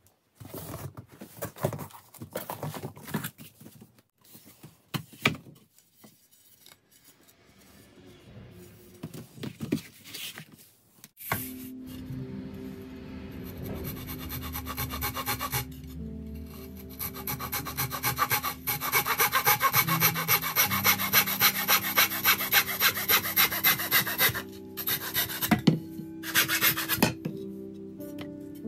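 Handsaw cutting through a thin wooden strip in rapid back-and-forth strokes. The strokes start about twelve seconds in and are loudest in the second half. Before that there are scattered knocks and rustles of handling.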